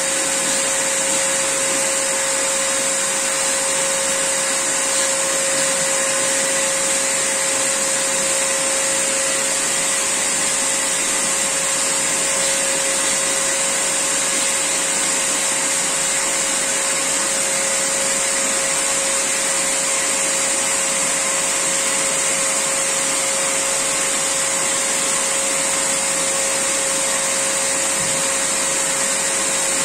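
Electric air pump running steadily while inflating an inflatable boat: an even, loud rushing hiss with a constant whine.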